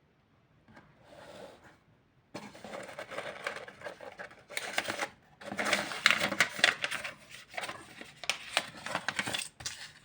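Bursts of rough scraping and rattling noise full of sharp clicks, starting a couple of seconds in and stopping and restarting several times.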